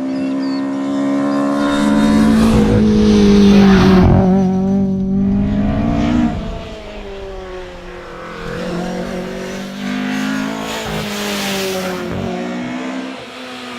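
Fiat 131 Abarth Rallye's twin-cam four-cylinder engine revving hard under acceleration, its pitch climbing over the first few seconds, then dropping off the throttle about six seconds in before pulling up through the revs again.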